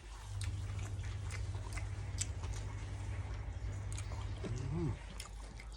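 Close-miked chewing of grilled pork salad: wet smacks and small clicks of mouth and teeth over a steady low rumble, with a brief pitched vocal sound from the eater about four and a half seconds in.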